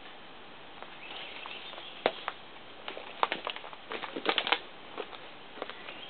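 Footsteps through forest undergrowth: irregular snaps and crackles of twigs and debris underfoot, with brush rustling, the sharpest cluster about four seconds in.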